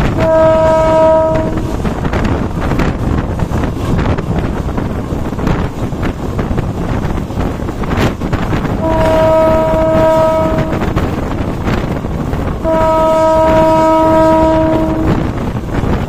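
Horn of the train's CC201 diesel locomotive sounding three steady blasts: a short one at the start, then two longer ones about nine and thirteen seconds in. It is heard from a coach further back, over a continuous rush of wind on the microphone and the train's running noise.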